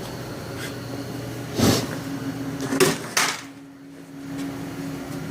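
A camera being lifted off its mount and handled: three knocks and bumps, one about one and a half seconds in and two close together near the middle, over a steady low hum.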